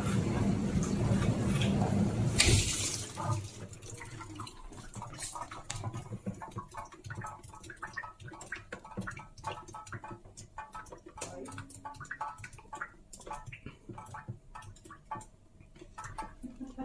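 Gorenje dishwasher running with a loud low hum that stops after a rush of water about two and a half seconds in. Water then drips and splashes inside the tub with irregular ticks.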